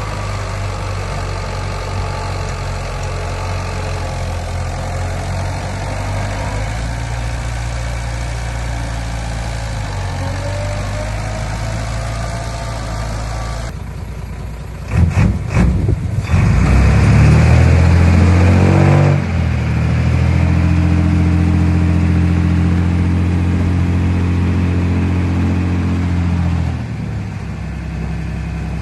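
Heavy construction machinery's diesel engine running steadily. About halfway through, the sound changes abruptly with a few knocks, then an engine runs much louder for several seconds before easing off near the end.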